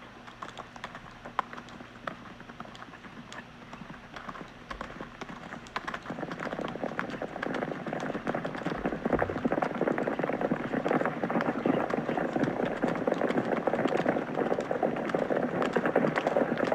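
Hoofbeats of horses running, a dense patter of many hooves on the ground that grows louder and thicker from about six seconds in.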